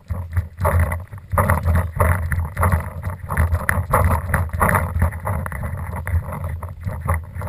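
Footsteps crunching on dry leaf litter and bark chips at a walking pace, about two steps a second, over a steady low rumble of wind and handling noise on the action-camera microphone.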